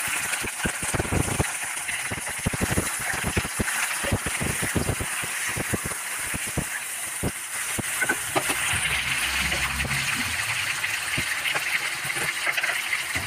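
Raw broiler chicken pieces sizzling in hot oil in a kadai while a spatula turns them: a steady loud hiss, with sharp spattering crackles that come thick for the first seven seconds and thin out after.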